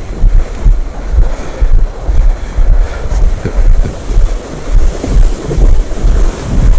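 Wind buffeting the microphone in uneven gusts, a heavy low rumble that swells and drops every fraction of a second.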